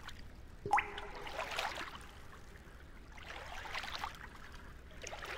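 Water trickling and gurgling in uneven spurts, with one sharp plop near the start.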